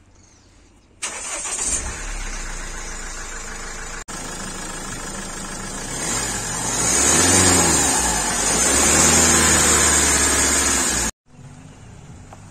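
Mahindra XUV500's mHawk diesel engine starting about a second in and then running. It is revved twice later on, the pitch rising and falling each time, before the sound cuts off near the end.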